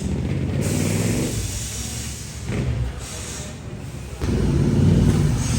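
A motor vehicle engine running, with two stretches of hiss, and getting louder about four seconds in.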